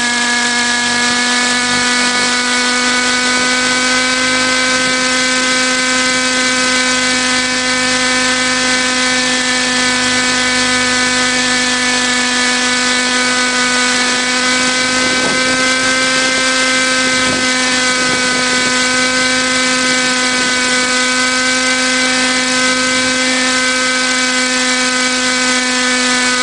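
Radio-controlled model helicopter in flight, giving a loud, steady, high-pitched whine over a constant hiss.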